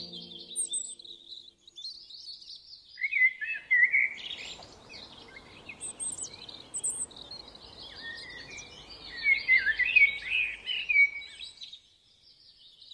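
Several birds chirping and trilling in quick, overlapping short calls, with a faint hiss of background noise underneath from about four seconds in until near the end.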